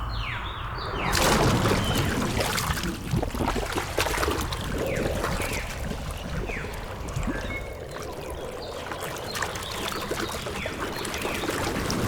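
Birds calling in short falling whistles over a dense rushing noise like running water or rain, which swells about a second in.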